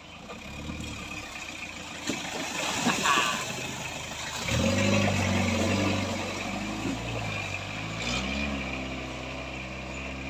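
A Chevrolet LUV four-wheel-drive engine revs hard under load as the truck climbs out of a muddy stream, its tyres churning and splashing through the water. The engine note climbs about four and a half seconds in and swells again near eight seconds as the truck pulls up onto the grass.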